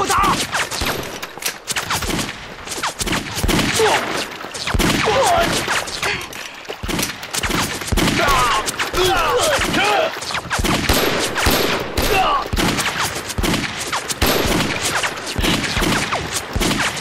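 Sustained gunfire from many rifles, shots overlapping several times a second with no pause.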